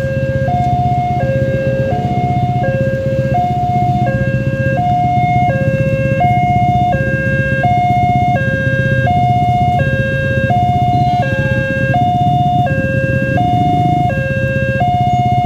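Railway level-crossing warning alarm (genta) sounding a loud two-tone hi-lo signal, switching between a low and a high tone about every 0.7 s, which warns that a train is about to pass. A steady low rumble runs underneath.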